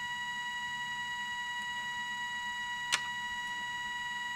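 Soviet 1969 «Signal» pocket radiometer-alarm sounding its audible alarm: a steady, fairly quiet high-pitched tone, the warning that the dose rate is above the threshold set on the instrument. A single click about three seconds in.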